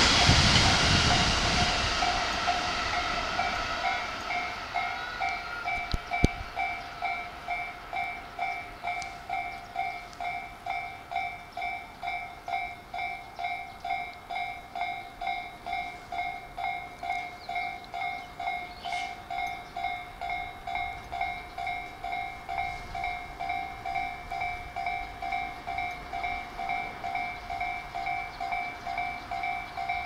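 An E217-series electric train's wheels and motors rumbling past, fading away over the first few seconds, while a Japanese level-crossing warning bell keeps up its steady, evenly repeating two-tone ding. A single short click about six seconds in.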